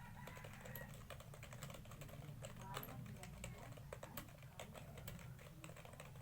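Fast touch-typing on a computer keyboard: a quick, irregular stream of key clicks at typing-test speed, over a faint low hum.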